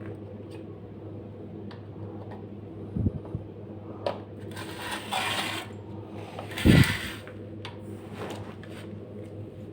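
Steady low electrical hum with handling noises on top: two heavy knocks, about three seconds in and again near seven seconds, with some scraping and rustling in between.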